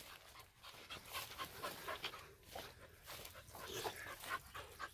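A dog panting faintly.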